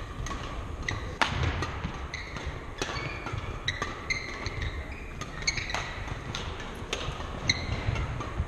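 Badminton rally: sharp racket strikes on the shuttlecock about every second and a half, with shoe squeaks and footfalls on the wooden court floor.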